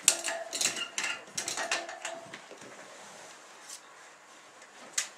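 Small clicks and clatter of wires and a plug being handled while an LED strip is connected to its power supply, busiest in the first two seconds, with one sharp click near the end.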